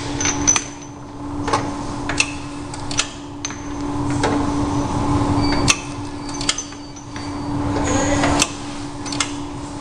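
MT-50 semi-automatic round-bottle labeling machine running: a steady motor hum with irregular clicks and knocks as bottles are loaded and the hand-lever roller arm is worked. The hum cuts out about two thirds of the way through.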